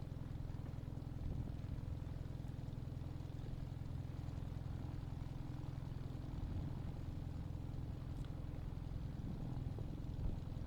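The Team Minimax 1100R ultralight's engine running at a steady speed, a low even drone, heard from the cockpit.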